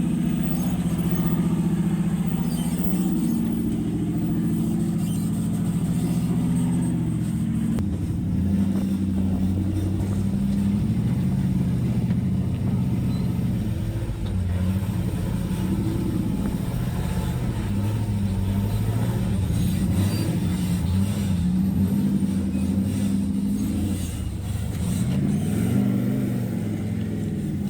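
Off-road UTV engine running through a rock-trail climb, its revs holding and shifting, with a blip up and back down near the end.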